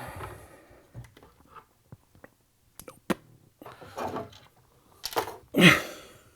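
Handling noises while searching for a dropped screw: scattered light clicks and brief rustles, with a louder rustle near the end.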